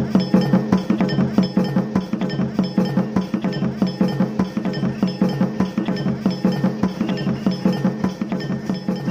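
Fast folk percussion music: a quick, steady beat of drum strokes mixed with ringing metallic strikes like cymbals or bells.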